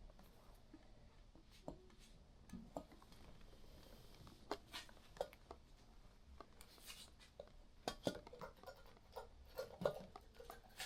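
Faint, scattered clicks and light taps of small objects being handled, coming more often in the second half.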